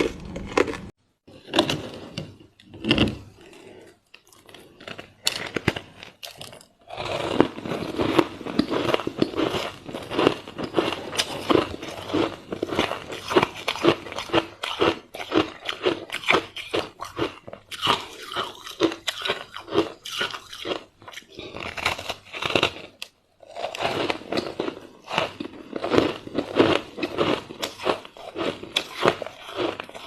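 A person biting and chewing frozen matcha ice close to the microphone: dense, rapid crunching and crackling. It is sparser for the first several seconds, with a few brief pauses between bites.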